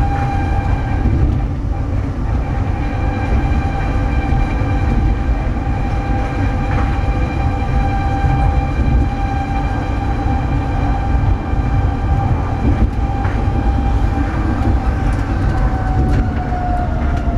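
Sydney Monorail electric train running, heard from inside the car: a steady low rumble with a constant whine whose pitch falls near the end.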